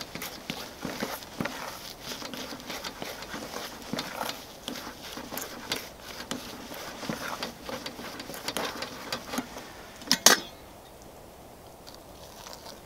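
Fork scraping and tapping against an aluminium camping pan as instant mashed potato is stirred and mashed, a quick run of small clicks and scrapes. About ten seconds in come two sharp knocks, then it goes quieter.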